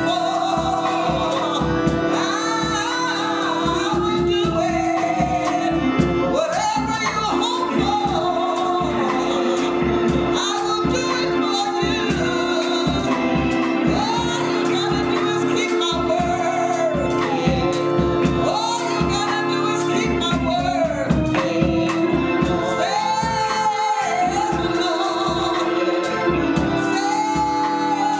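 Gospel praise music: singers over a band with a steady beat and a sustained keyboard tone.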